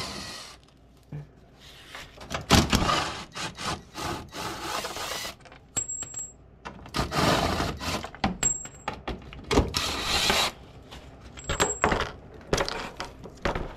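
Hand tools at work on the quad's plastic footwell skid plate: irregular scraping and rubbing, each burst about a second long, with clicks and knocks in between.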